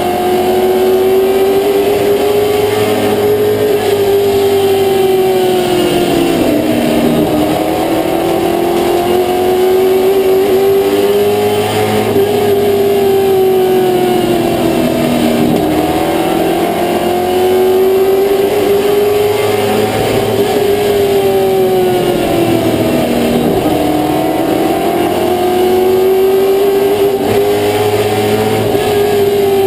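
Limited late model race car's V8 engine heard from inside the cockpit at racing speed. The revs hold high along each straight and drop sharply off the throttle into each corner, three times, about every eight seconds.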